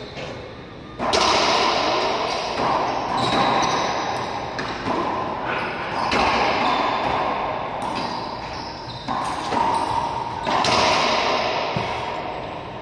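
Racquetball rally: the rubber ball cracking off racquets and the court walls and floor, a hit every second or two, each one ringing with a long echo in the enclosed court.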